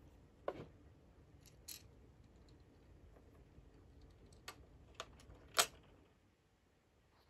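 Light plastic clicks and taps from handling a miniature toy kitchen: the tiny toy microwave door snapping shut and a small toy pan being set down, five separate ticks with the last the loudest.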